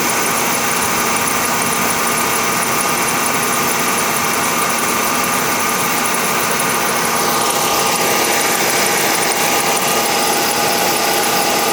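Mercedes-Benz M272 V6 engine idling while still cold, with a steady whistle over the running engine; the whistle shows up at low revs before the engine warms up, and its cause is unknown to the owner. The tone of the sound shifts about seven seconds in.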